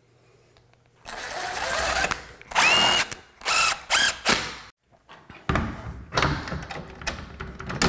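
Cordless drill driving screws into softwood, starting about a second in and then running in a series of short bursts.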